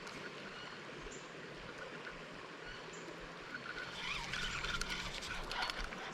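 Steady rush of flowing creek water, with busier splashing and clattering from about four seconds in.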